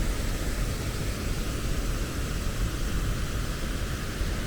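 Steady roar of fast, turbulent river water rushing over rapids and falls, an even noise with a heavy low rumble.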